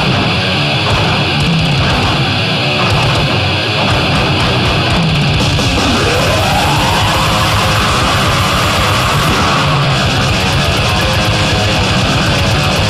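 Loud heavy metal music with guitars. About halfway through, a note slides up and is held for a few seconds.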